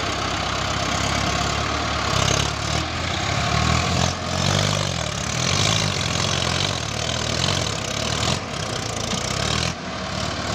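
Mahindra Arjun 555 tractor's diesel engine running hard under load in deep mud, its note swelling and easing every second or so, with mud and water churning under the tyres.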